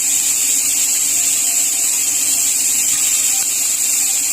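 Chopped carrots, onion and garlic sizzling in hot olive oil in a cooking pot: a steady, high hiss.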